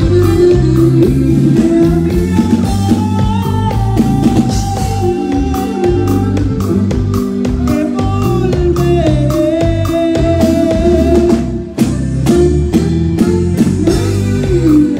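Live band music: a male singer over saxophones and a steady drum beat.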